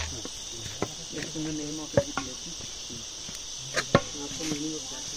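Steady high-pitched drone of forest insects, with a few sharp taps of footsteps on a concrete path, the loudest about two and four seconds in. Faint voices can be heard between the steps.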